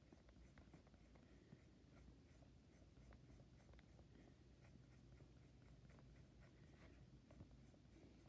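Faint scratching of a pen on a sketchbook page, many short quick strokes as eyelashes are drawn, over a low steady hum.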